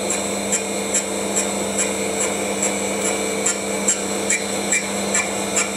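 A lathe and a tool-post grinder running together, with the grinder's wheel set against the jaws of a spinning three-jaw chuck: a steady motor whine and hum with a light, regular tick a little over twice a second.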